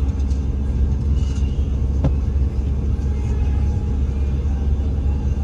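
Car driving, a steady low rumble of engine and road noise, with a single sharp click about two seconds in.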